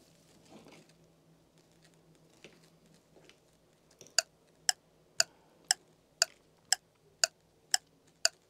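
Faint soft sounds at first, then steady clock ticking from about halfway through, about two ticks a second.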